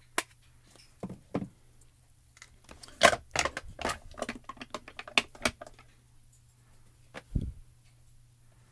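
Hands handling a clear acrylic stamp block and a plastic ink pad on a craft desk: scattered sharp clicks and taps, a quick flurry of them in the middle, and a dull thump near the end.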